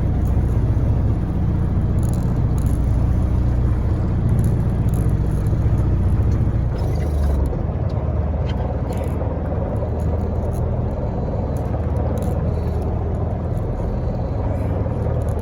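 A boat's engine running steadily with a low, even rumble, under a haze of wind and water noise.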